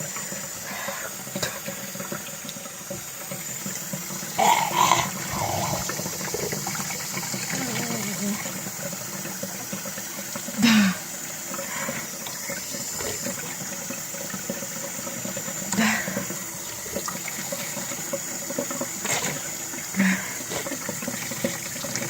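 Tap water running steadily into a sink, with a person's short, loud coughs breaking in about five times: someone rinsing cinnamon out of a burning mouth.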